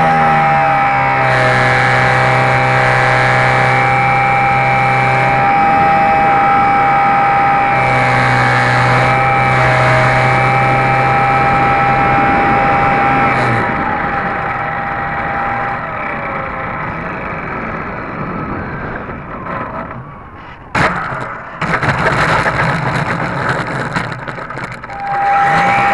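HobbyZone Super Cub RC airplane's electric motor and propeller whining steadily, with airflow noise on the underwing camera's microphone; the pitch drops about a second in. About halfway through the whine stops, leaving only rushing air, then a sharp click and louder wind noise follow, and a steady tone returns near the end.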